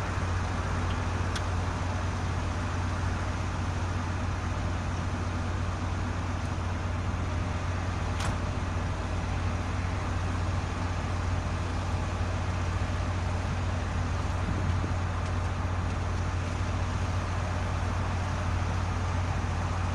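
Caterpillar excavator's diesel engine running at a steady speed, a constant low hum, with two brief clicks, one early and one about eight seconds in.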